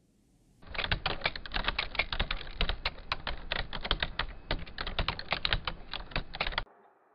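Rapid typing: a fast, uneven run of key clicks that starts about half a second in and cuts off suddenly near the end.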